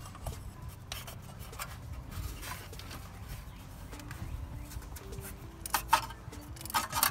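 Metal clicks and clinks of a ratchet with an extension and oil filter socket being worked on the oil filter of a Toyota Camry 3.0 V6, loosening the filter. The clinks are scattered, with a cluster of sharper ones near the end.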